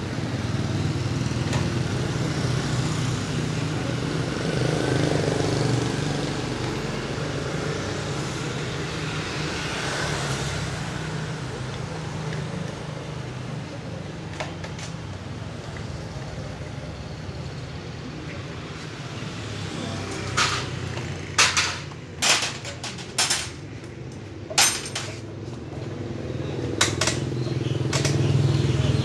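A steady low motor hum, with a run of about eight sharp knocks or taps in the last third.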